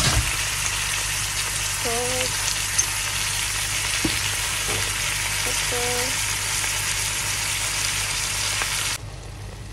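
Raw chicken pieces sizzling in hot oil in a pot on top of sautéed onion and ginger: a steady frying hiss. There is a thump at the start as the chicken goes in, and the sizzle cuts off abruptly near the end.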